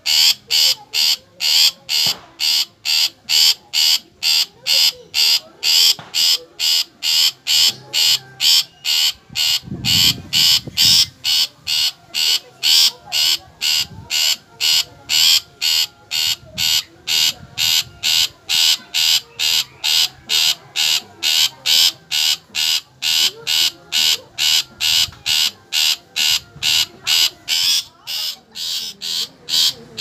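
Long-tailed shrike (cendet) calling: a short, harsh note repeated evenly about twice a second without a break.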